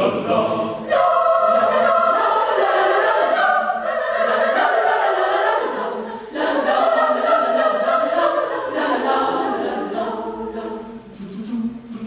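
Large mixed choir of men's and women's voices singing, in phrases broken by short pauses about a second in and near the middle, growing quieter near the end.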